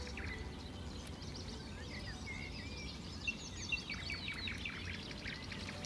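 Small songbirds chirping and singing in quick, varied notes, busiest in the second half, over a steady low rumble.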